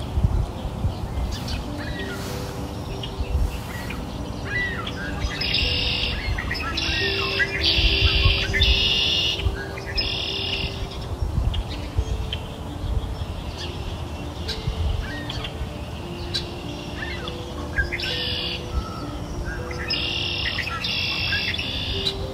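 Birdsong over soft background music: rapid high chirps and trills in two spells, about five seconds in and again near the end, with low sustained notes underneath.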